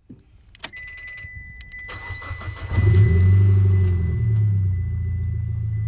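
Car engine being started: the starter cranks and the engine catches about three seconds in, flares briefly, then settles to a steady idle. A click and a steady high-pitched tone come just before the cranking, and the tone carries on through it.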